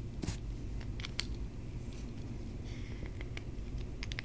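Light clicks and scrapes of fingers screwing the cap onto a 1/8-scale RC shock absorber, a few scattered ticks over a steady low hum.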